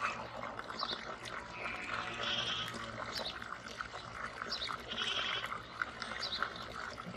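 A flock of goats bleating, with several calls overlapping one after another.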